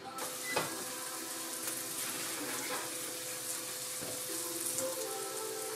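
Steady hiss with a faint hum from an open oven as a baking dish is slid in, with a light knock about half a second in and another near four seconds in.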